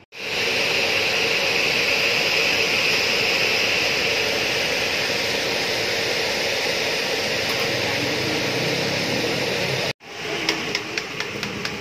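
Steady, loud roaring hiss of a gas burner firing under a wok of hot frying oil. After a short break about ten seconds in, the hiss comes back quieter, with a quick run of sharp crackles and pops from the frying oil.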